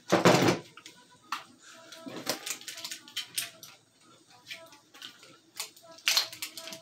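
Airsoft revolvers being twirled and caught in the hands, making scattered sharp clicks and clatter. A loud thump and rustle comes right at the start.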